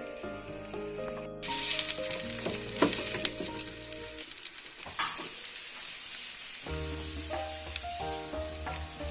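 Zucchini pancake batter sizzling in hot oil in a frying pan. The sizzle grows louder about one and a half seconds in, and a few sharp clicks are heard. Background music plays over it and drops out for a couple of seconds midway.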